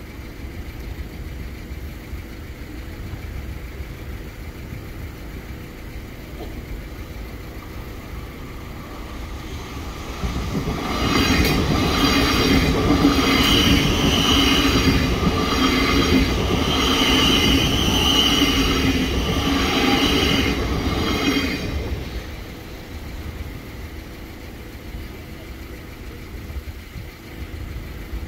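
A third-rail electric multiple-unit train passes over a level crossing. It swells in about ten seconds in with a steady electric whine and regular clacks of the wheels over the rail joints, then dies away after about eleven seconds, leaving a low steady rumble.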